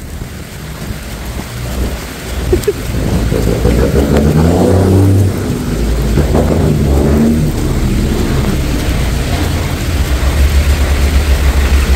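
Heavy rain pouring down while a motor vehicle's engine swells up and passes close by from about three seconds in, fading after about eight seconds, over a steady low rumble of traffic on the wet road.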